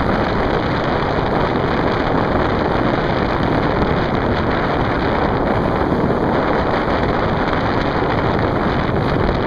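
Strong wind buffeting the microphone: steady, loud, rushing noise with no break.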